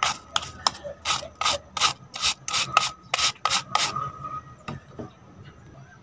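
Stiff plastic scrub-brush bristles raking across the pleated paper cartridge filter of a Deerma DX700 handheld vacuum, brushing the dust out of it. Short, brisk rasping strokes come about three to four a second and stop about four seconds in.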